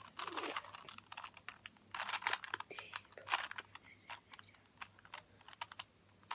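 Plastic 3x3 Rubik's Cube being turned by hand: a quick, irregular run of clicks and clacks as its layers snap round, thinning out near the end.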